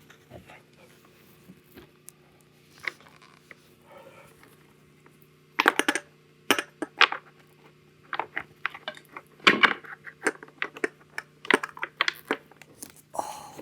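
Metal parts and tools clinking and knocking as a Onewheel is reassembled after a tire change: scattered light clicks at first, then busier, louder knocks from about six seconds in as the wheel assembly is worked into place.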